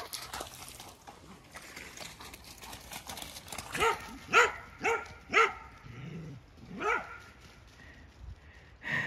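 A dog barking in play: four short barks about half a second apart, then a fifth a second and a half later.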